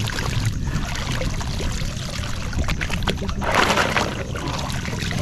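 Water sloshing and splashing around people wading chest-deep, over a steady low rumble, with a louder splash about three and a half seconds in and a few small clicks.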